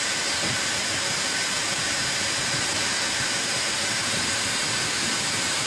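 Sawmill blade cutting through a log: a steady hiss with a few high steady tones.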